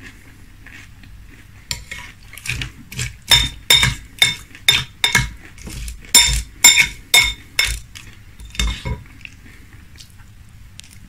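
Metal spoon clinking against a glass bowl of frosted corn flakes and milk as the cereal is stirred and scooped: a run of quick clinks, about two a second, each with a short bright ring from the glass. It starts a couple of seconds in and stops near the end.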